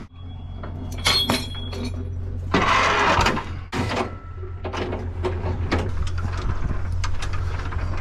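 Truck engine idling with a steady low hum, under a run of metallic clanks and rattles from trailer gear, and a rush of noise lasting about a second roughly two and a half seconds in.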